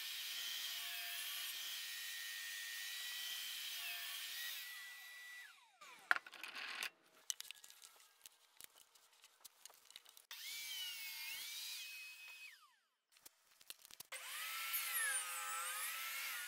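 Table saw running and cutting into the end of a wooden board in three separate passes, its pitch dipping and wavering as the blade takes the wood, with short quieter gaps and a few clicks between passes.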